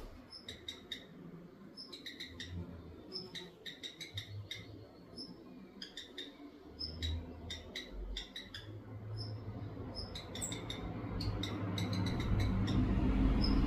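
Redstart calling: short high squeaky notes, each followed by a quick run of sharp ticks, repeated every second or so, over a low rumble that grows louder near the end.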